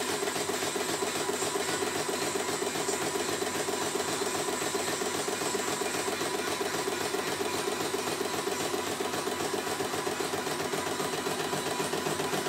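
CNY E900 computerised embroidery machine stitching out a design, its needle running at a steady fast rhythm while the embroidery unit moves the hoop.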